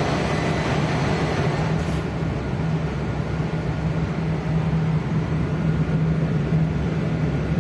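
Steady machinery drone with a constant low hum, the background noise of a ship's engine room while the MAN B&W ME-C two-stroke main engine runs under load during auto-tuning.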